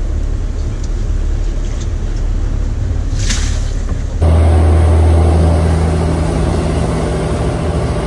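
Boat engine running low with a steady rumble and a short sharp noise about three seconds in. From about four seconds, a louder steady engine drone with rushing water and wind as the boat runs at speed, leaving a large wake.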